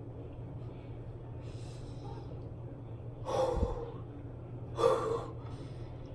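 A man gasping sharply twice, about three and five seconds in, in reaction to fake blood in his mouth, over a steady low hum.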